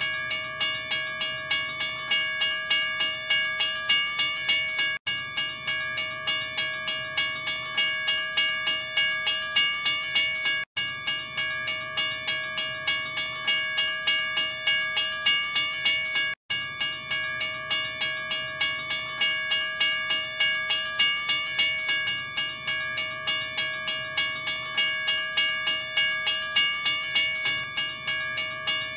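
Railroad crossing bell ringing steadily, about two and a half strikes a second, each strike ringing on with a clear metallic tone. The sound cuts out for an instant three times.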